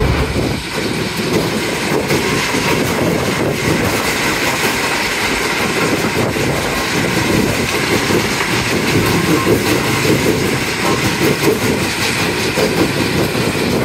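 A 100–150 ton-per-hour stationary rock crushing and screening plant running: a loud, steady mechanical din of crushers, screens and conveyors, with a continuous rattle of rock.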